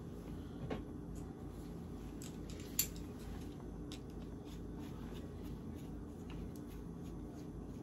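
Faint small metallic clicks of a Phillips screwdriver backing screws out of a small metal interlock-kit plate, with one sharper click about three seconds in, over a steady low hum.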